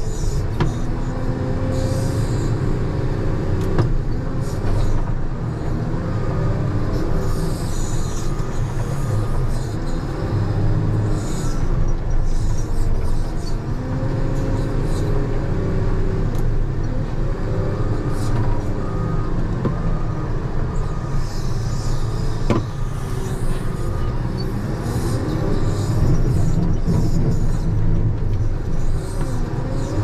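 Diesel engine of a JCB loader working, its revs rising and falling as it pushes and lifts snow, with a faint regular beeping in the middle stretch.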